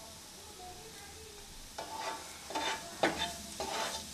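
Nylon slotted spatula scraping and scooping shredded stir-fried vegetables around a nonstick frying pan. It is quiet for the first second or so, then four or five short scraping strokes come in quick succession.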